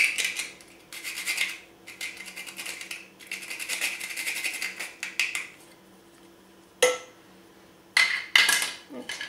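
A whole nutmeg rasped against a small metal hand grater in several runs of quick scraping strokes. Near the end come a sharp knock and a short clatter as the grater is put down.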